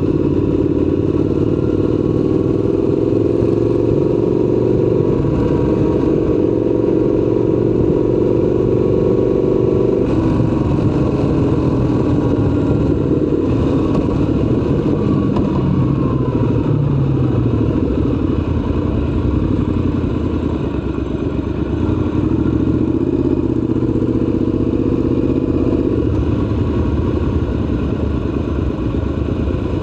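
Triumph Scrambler 1200 XC's 1200 cc parallel-twin engine running on the move. It holds a steady note for about ten seconds, then the pitch falls as the bike slows partway through, and it steadies again toward the end.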